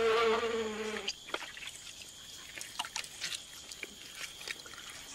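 A flying insect hovering and buzzing with a steady, even hum, which cuts off abruptly about a second in. After that come scattered faint clicks over a quiet background.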